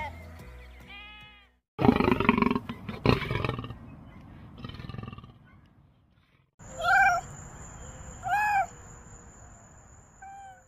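A sheep bleats once. Then a lion gives a loud roar lasting about two seconds. Later a lynx calls three times in short yowls that rise and fall.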